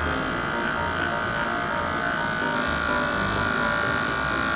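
Electric pet hair clipper running steadily as it trims the fur between a cat's paw pads, a steady buzz with a high whine that grows a little stronger about halfway through.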